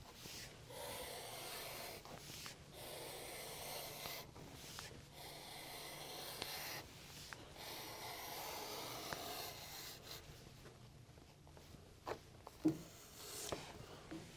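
Wooden draw gauge being pulled along heavy latigo leather, its blade slicing off a 1¾-inch strap: faint rasping strokes of a second or two each, with short pauses between them. A few light knocks near the end.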